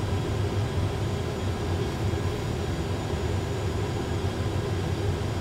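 Steady cockpit drone of an Airbus A320 full-flight simulator on final approach, an even hum with no distinct events.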